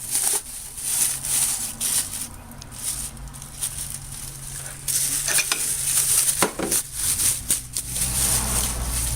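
Masking tape being peeled and torn off a painted metal vise part, an irregular crackling and ripping, over a steady low hum.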